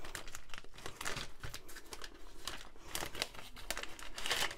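Plastic packaging crinkling and rustling as the pouch of a diamond-painting tool kit is handled and opened: many small crackles, with a denser rustle near the end.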